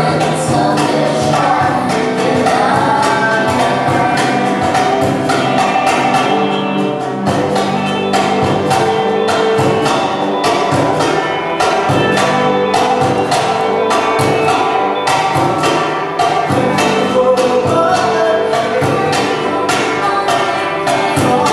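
Live music with several voices singing over sustained instrumental notes and a steady percussive beat, like a tambourine or shaker.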